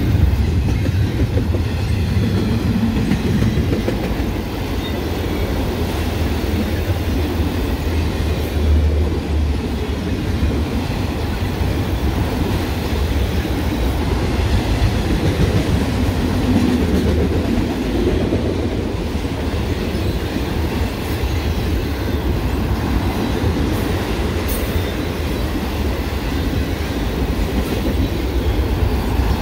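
Freight train cars rolling past, a steady rumble of steel wheels on the rails, with double-stack container cars giving way to enclosed autorack cars.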